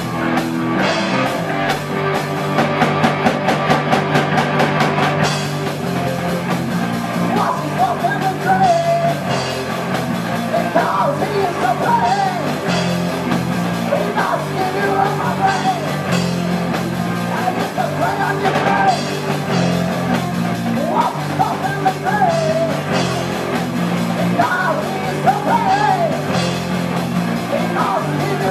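Live amateur rock band playing: electric guitars over a drum kit, with fast even drum strokes in the first few seconds. A male lead vocal sings over the band from about eight seconds in.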